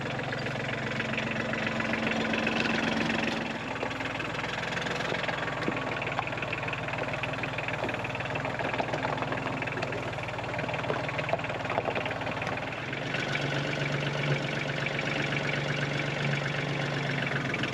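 Compact tractor engine running steadily while its front loader carries a log on a chain, grows a little louder about 13 seconds in.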